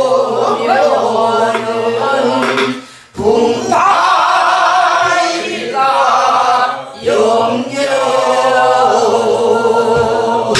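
A group of men and women singing a Korean Namdo folk song together in the southern style, with a wide wavering vibrato. The singing breaks briefly about three seconds in and again about seven seconds in. Now and then a stroke falls on the buk barrel drums.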